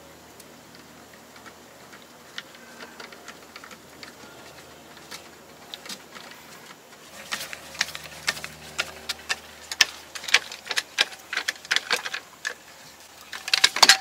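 Scissor jack being cranked down by its crank handle: a run of irregular metallic clicks and ticks that grows denser and louder about halfway through, with a louder clatter near the end.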